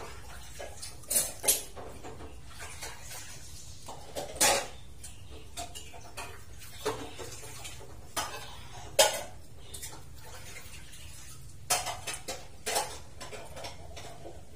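Knife peeling crisp green ambarella (cóc) fruit by hand: short, irregular scrapes and clicks, a dozen or so, with a few louder ones about four and a half, nine and twelve seconds in.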